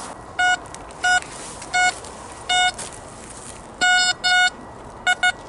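XP ORX metal detector beeping as its search coil is swept over the ground: about nine short beeps, all on the same tone, coming at uneven intervals and twice in quick pairs, as it signals metal targets in the soil.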